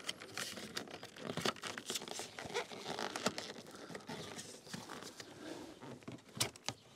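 Plastic interior door trim on a Nissan Micra K11 being worked loose from behind the door card: irregular scraping, rubbing and small plastic clicks, with a sharper click near the end.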